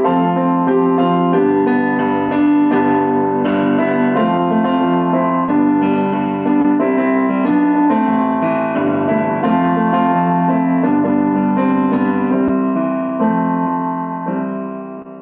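Piano playing a flowing instrumental passage of chords and melody, with no singing; near the end the playing stops and the last notes die away.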